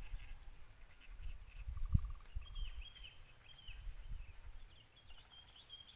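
Small birds chirping in short, high calls from a couple of seconds in, over a low rumble, with one sharp knock about two seconds in.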